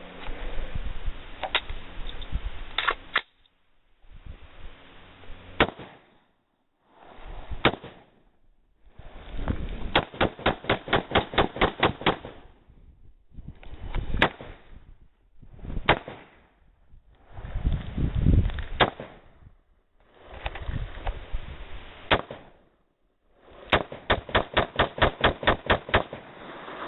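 DPMS Panther Arms Oracle AR-15 in 5.56/.223 firing: scattered single shots and two rapid strings of about a dozen shots in two seconds each, with the sound cutting off and restarting abruptly between spliced clips.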